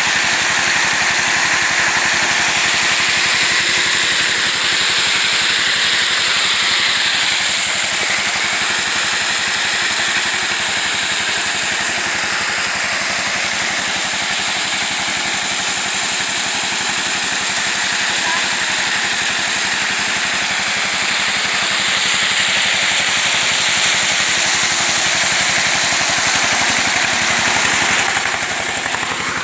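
Steady hiss and splash of a powerful water jet thrown from a tractor PTO-driven centrifugal pump's outlet, with the small tractor's engine running underneath as it drives the pump.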